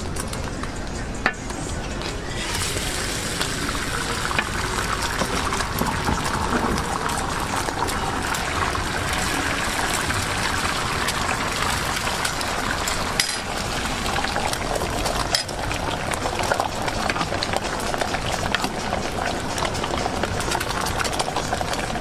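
Beaten egg frying in a thick layer of hot oil on a flat griddle, a steady sizzling hiss, with a few sharp clicks of a metal spatula against the griddle.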